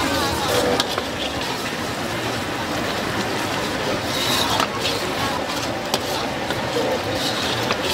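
Hot liquid bubbling vigorously in a large steel wok as a metal ladle stirs and scoops through it, a steady sizzling hiss with a few sharp clinks of the ladle against the wok.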